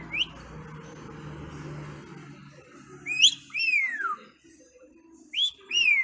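African grey parrot whistling: a short rising whistle at the start, then about halfway through a short rising note followed by a long falling whistle, and near the end another rising-then-falling pair.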